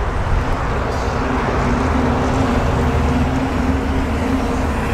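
A steady low engine hum under outdoor noise, with no sudden sounds.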